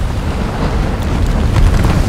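Low, steady rumbling roar of an erupting lava fountain, with a few sharp pops of spattering lava in the second half.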